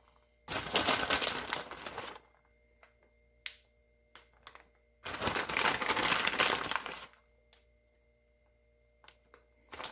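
Plastic bag of shredded mozzarella crinkling as the cheese is shaken out onto pasta, in two rustling bursts of about two seconds each, with a few light clicks in between.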